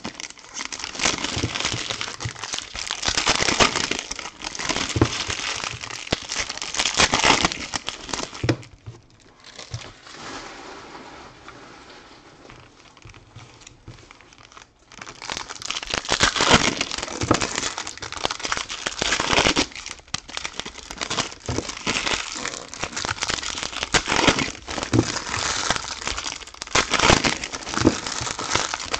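Foil trading-card pack wrappers crinkling and tearing as packs are opened and handled, with a quieter stretch of several seconds near the middle.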